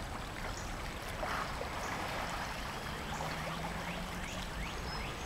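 Steady rush of a flowing river's current.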